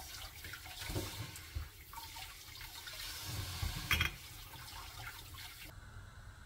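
Water running and splashing, as from a kitchen tap, with a few knocks about a second and four seconds in. It cuts off suddenly shortly before the end.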